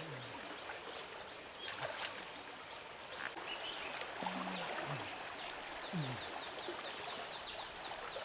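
Shallow river water flowing steadily, with occasional small splashes. A rapid series of high chirps, about five a second, joins about halfway through.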